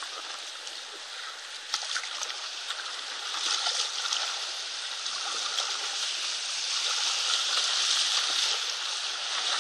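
Whitewater rushing and splashing around an inflatable raft as it is paddled down a rapid, with a few short knocks about two seconds in. The water grows louder in the second half as the raft runs into rougher white water.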